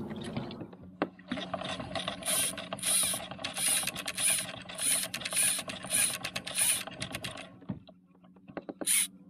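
Baitcasting fishing reel being cranked, a rhythmic mechanical whirr with about two handle turns a second, stopping about seven and a half seconds in. One more short burst of cranking near the end.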